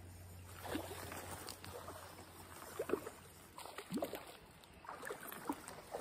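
Water splashing in a string of short, irregular bursts.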